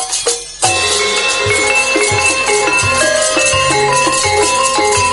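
Gamelan ensemble striking up suddenly about half a second in: ringing metallophone and gong-chime notes over a steady low drum beat, the accompaniment to the wayang puppet play.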